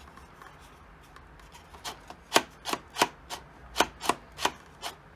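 Sharp, irregular clicks and knocks of hard 3D-printed plastic parts as a biscuit joiner attachment on a router is handled and worked by hand. After about two seconds of soft handling, roughly a dozen knocks follow at two or three a second.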